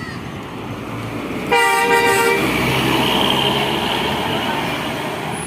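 Bus air horn sounding one short multi-tone blast of just under a second, followed by the bus passing close with a loud, steady rush of engine and tyre noise.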